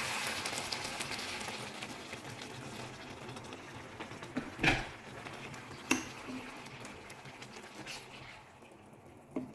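Chicken pieces in tomato sauce sizzling and bubbling in a pan after water has been added, the sizzle slowly dying down as the water takes over. About halfway through come two sharp knocks, a second apart.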